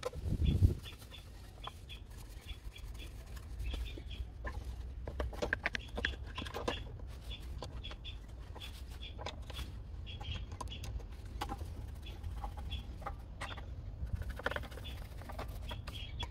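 Birds chirping repeatedly against a steady low rumble. Two thumps come right at the start, and scattered clicks and knocks follow from handling the plastic switch housing and screwdriver.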